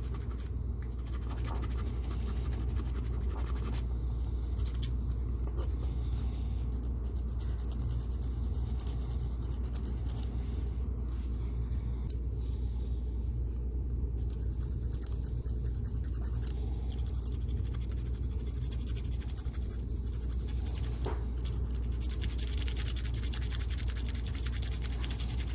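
Sanding a filled repair on a small diecast metal car body: steady scratchy rasping, over a constant low background hum.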